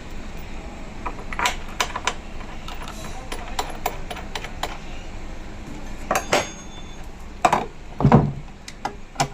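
Irregular sharp clicks and knocks of hand tools and metal parts being handled, with a heavier thud about eight seconds in.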